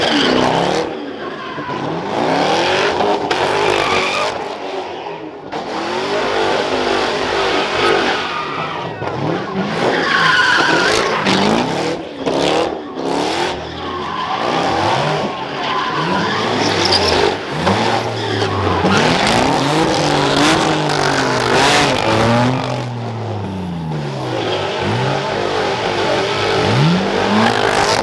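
A car doing sideshow donuts: its engine revs up and down over and over while its tires screech on the pavement.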